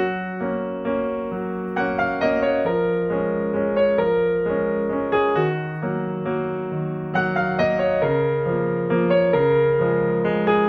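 Background music on a piano-like keyboard: struck notes and held chords over a changing bass line.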